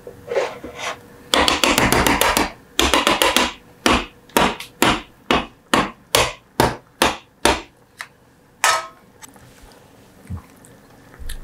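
Metal kitchen tongs clattering in a saucepan of sauce, then knocked against the pan's rim in a steady run of about ten sharp clinks, two to three a second, with one last clink near the end.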